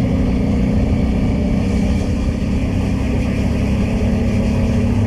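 Honda Transalp motorcycle's V-twin engine running steadily while riding along, a constant low engine hum under road and wind noise.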